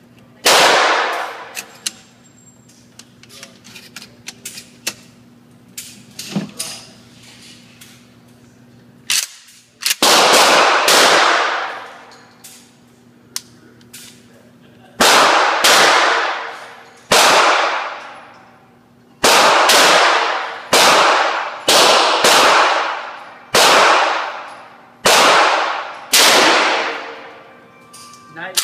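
Gunshots from a long gun fired in an indoor shooting range, each shot echoing off the range for about a second. After one early shot and a few seconds of small loading clicks, more than a dozen shots follow, mostly about a second apart.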